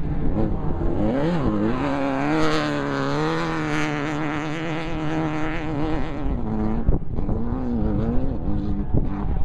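Off-road race car engine running hard at speed, its pitch dipping and climbing about a second in, holding high through the middle, then falling and rising again near the end as the throttle changes, over constant rough road and wind noise.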